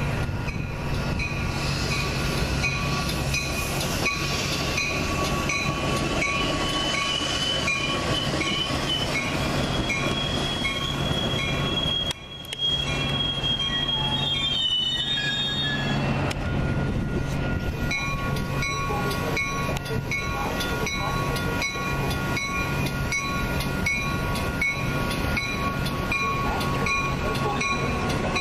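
A Metra commuter train of double-deck gallery cars rolling past at close range. The wheels click at a regular rhythm over the rail joints, with high wheel squeal through the middle and a steady low hum from the train.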